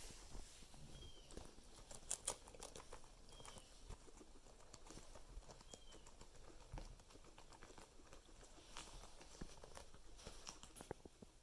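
Faint rustling, clicks and light taps of guinea pigs moving about and eating, with three tiny high chirps in the first half.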